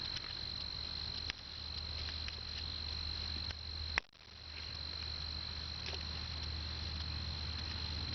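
Steady high-pitched insect chorus trilling without a break, with a faint click about a second in and a sharp, louder click about four seconds in.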